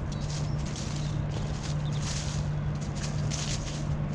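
Footsteps crunching over frozen ground and frosty dry grass at a steady walking pace, with a steady low hum underneath.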